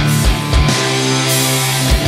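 Instrumental heavy metal with distorted guitar, bass and drum kit: a couple of kick-drum beats, then a chord held for about a second with a cymbal wash, the drums coming back in right at the end.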